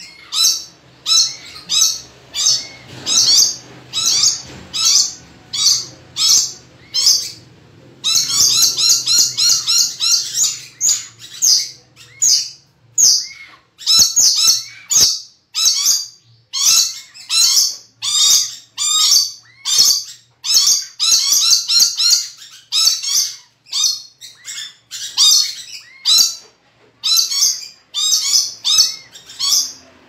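Red lory giving short, high-pitched calls over and over, about two a second at first, then a faster, denser run of calls from about eight seconds in.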